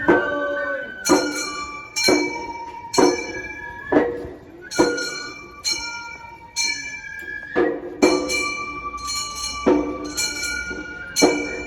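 Music of struck metal hand gongs: each strike rings on with bright, shimmering overtones, about once a second in a slightly uneven rhythm, with a high flute-like held note over them. This fits the kane gongs and fue flute of Gion-bayashi festival music.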